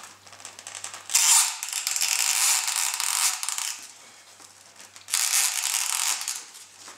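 Foam nose section of a scratch-built model plane being pushed into a tight slot in the foam airframe: foam rubbing and creaking against foam in two long pushes, the first about a second in and the second about five seconds in.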